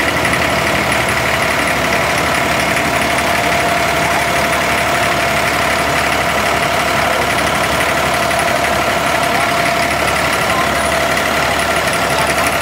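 Diesel engine of a wooden abra water taxi running steadily, heard from on board.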